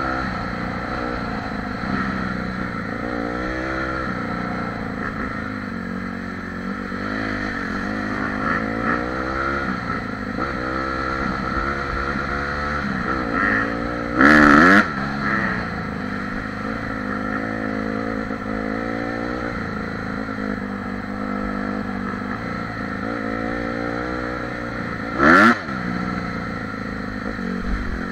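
Honda CRF dirt bike engine running on the move, its revs rising and falling again and again with the throttle, heard close up from a camera on the bike. Two short, loud bursts of noise cut in, about halfway through and again near the end.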